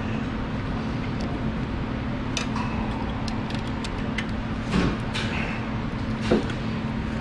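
Light metallic clicks and taps as a parking brake cable and its coiled spring guard are handled at a drum brake, with a couple of duller knocks, over a steady low hum of shop background noise.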